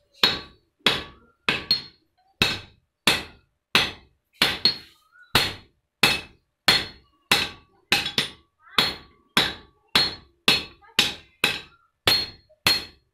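Blacksmith's hand hammer forging red-hot iron on a low anvil: steady blows about one and a half a second, each a sharp metallic strike with a short ring, with an occasional lighter tap between them.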